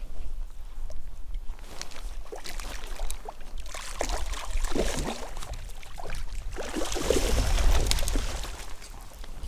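Water splashing beside a kayak as a hooked pike thrashes at the surface while being played on a spinning rod, in two bursts about four and seven seconds in, the second the louder.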